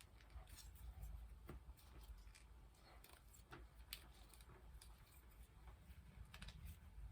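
Faint, scattered small clicks and taps from handling the plastic parts of an MC4 solar connector.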